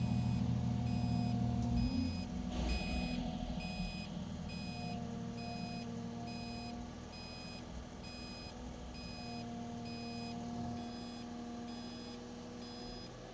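Cat 305 CR mini excavator's diesel engine and hydraulics running while the TRS6 tilt rotator grapple positions a steel beam. The engine is loudest for the first two seconds, then eases off, and a hydraulic whine comes and goes. A short high electronic beep repeats about once a second throughout.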